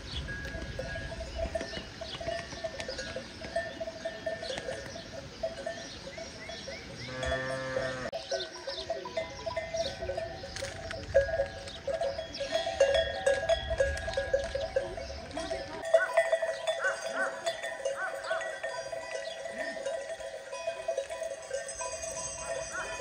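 Bells on a flock of sheep clanking and tinkling without a break as the animals move. A sheep bleats once about seven seconds in.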